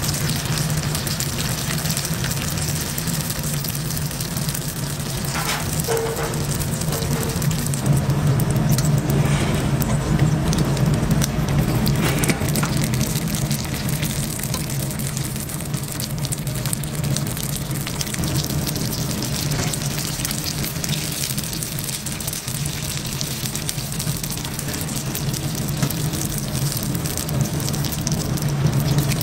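Battered food deep-frying in hot oil: a steady sizzle with faint crackles, over a low steady hum.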